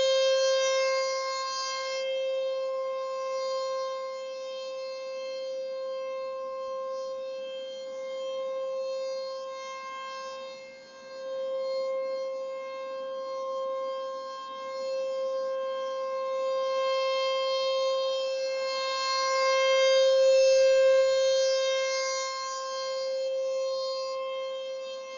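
Outdoor civil-defense warning siren sounding a steady, unwavering tone during a routine test, its loudness swelling and fading every several seconds, loudest a little past the middle.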